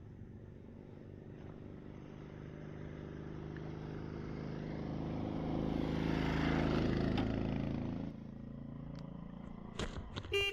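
Triumph Scrambler 400 X's single-cylinder engine running, growing steadily louder for about seven seconds, then dropping off suddenly. A few sharp clicks come near the end.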